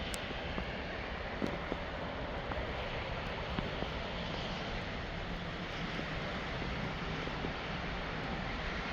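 Steady rushing outdoor background noise with a few faint ticks scattered through it.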